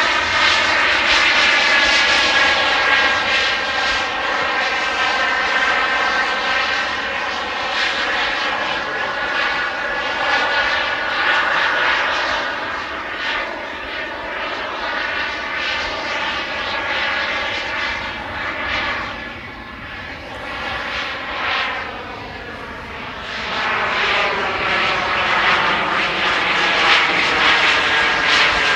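Four small jet turbines of a large 1/13-scale RC Airbus A380 model running in flight as it passes overhead. A steady rushing sound that fades somewhat about two thirds of the way through, then grows louder again near the end.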